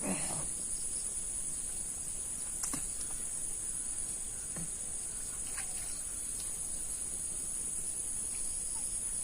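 Steady high-pitched drone of insects, crickets or cicadas, with a few faint short knocks and rustles scattered through it.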